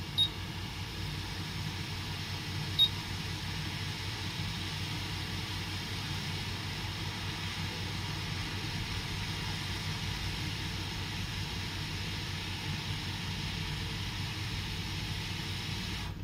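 Hot-air rework station blowing on a laptop motherboard: a steady rush of air with a low fan hum, which cuts off at the very end.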